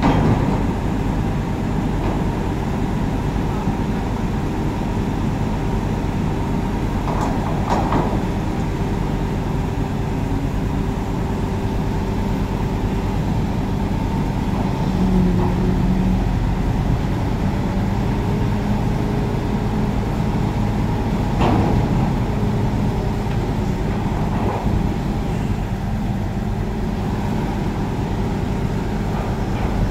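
Heavy diesel engines running steadily, a continuous low drone with a hum, from the crane and truck working a container lift. A few brief sharper sounds stand out about eight and twenty-one seconds in.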